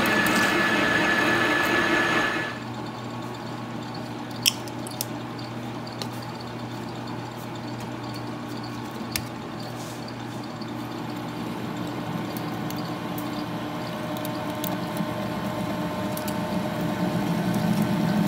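A lathe taking a cut on steel with a carbide-insert tool, loud for about two seconds, then the lathe running while a large taper-shank twist drill bores into a steel block: a steady machine hum with a few sharp clicks that slowly grows louder toward the end as the drill cuts and throws curling chips.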